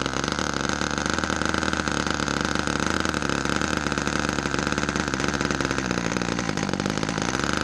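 Fox .35 two-stroke glow engine on a control-line model biplane running steadily on the ground, a high-pitched whine, while the plane is held ready for launch. Its note wavers slightly about six seconds in.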